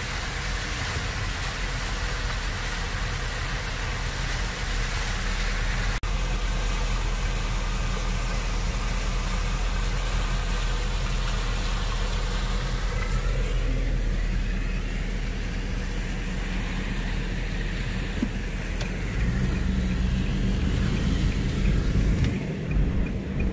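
Car engine running and road noise heard from inside the cabin, with a rising engine note about halfway through as the car pulls away.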